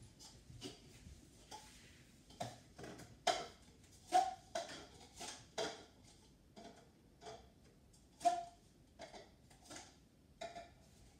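Cups being set down and stacked one on another: a run of light, irregular clicks and taps, some with a short ring.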